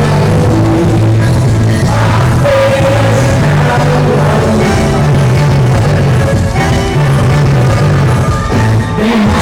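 Loud music with singing over a full band and a moving bass line.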